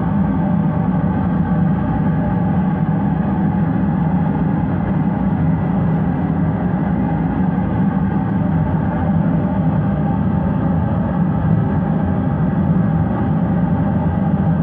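A steady, loud drone with several held tones, strongest low down, running unchanged without a break.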